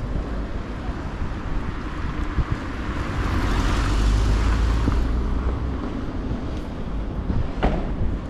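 A car passing by, growing louder to a peak about four seconds in and then fading away.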